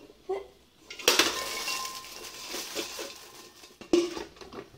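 Metal saucepan knocking against the rim of a bowl as freshly popped popcorn is tipped out of it: a clatter about a second in, a couple of seconds of rattling as the popcorn pours out, then another sharp knock near the end.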